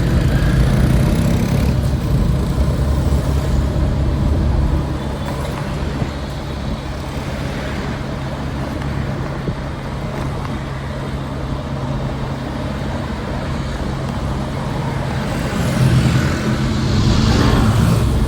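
Street traffic: engines running close by, easing off after about five seconds, then a vehicle passing close near the end.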